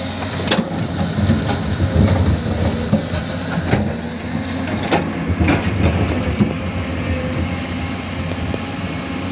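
Excavator's diesel engine running steadily under work, with irregular sharp clanks and knocks as the bucket rakes through rock.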